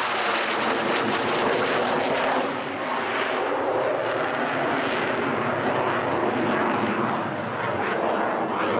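Saab JAS-39C Gripen fighter's Volvo RM12 turbofan engine during a fast low flyby: loud, sustained jet noise with a crackling edge.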